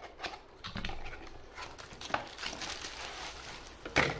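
A cardboard box being opened by hand: flaps scraping and tapping with scattered light clicks, then a sharp knock about four seconds in as the plastic-wrapped basketball is pulled out.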